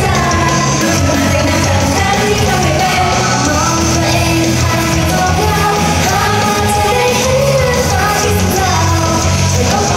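Live pop-rock idol song played loud through a PA system, with female vocals singing over a full band backing.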